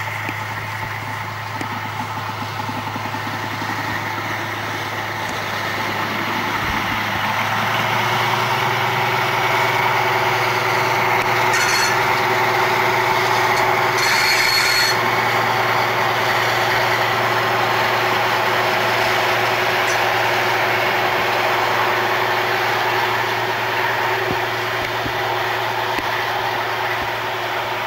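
DB class VT 08 diesel multiple unit running past, its engines droning and wheels running on the rails. It swells as the train comes nearest and eases off as it draws away, with two brief high-pitched sounds midway.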